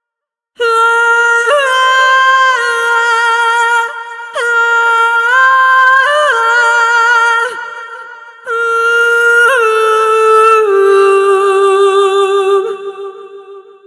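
Sampled female voice from the Kontakt library "Clara's Vocal" singing wordless held notes in three phrases, each stepping between a few pitches. The last phrase settles on a lower note and fades out.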